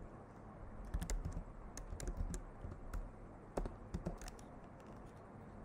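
Typing on a computer keyboard: key clicks in short, irregular runs of a few strokes at a time.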